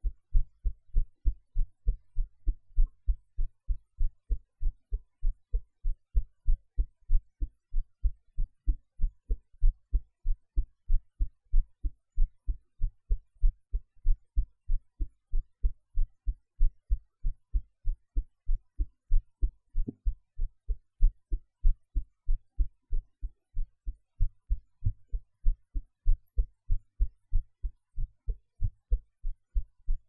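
A person's own heartbeat recorded close at the chest: a steady, even rhythm of low, short thumps, with background noise cut out by editing.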